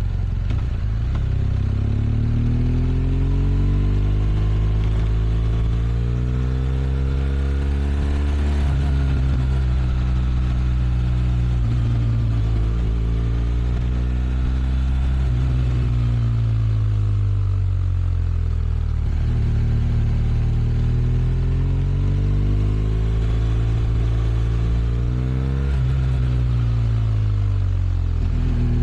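BMW R1200 RS flat-twin boxer engine running with its stock exhaust, engine speed climbing and easing off several times, with a sudden drop in pitch about a third of the way in and again near the end.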